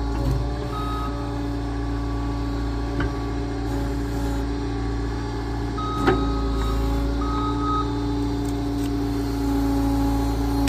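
A machine's engine running steadily while a reversing alarm beeps in short spells, about a second in and again around six to eight seconds in. A sharp knock sounds about six seconds in.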